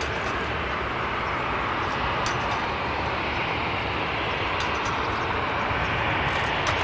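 Jet airliner engines, a steady rushing noise that grows slightly louder near the end.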